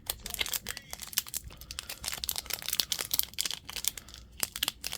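A foil trading-card booster pack crinkling and tearing as it is pulled open by hand, a dense run of rapid, irregular crackles. The pack is tough to open.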